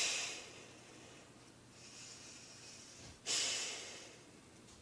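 A person breathing through the nose close to the microphone. There are two loud breaths, one at the start and one about three seconds in, each fading over about a second, with a fainter breath between them.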